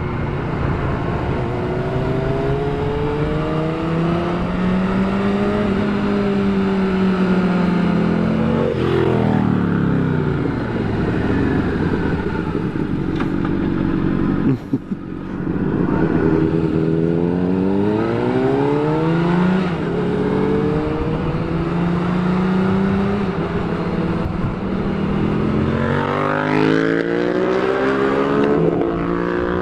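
Sport motorcycle engine heard from the rider's seat, its pitch rising and falling repeatedly as the rider accelerates and shifts through the gears, over a steady rush of wind noise. About halfway through the sound briefly drops out.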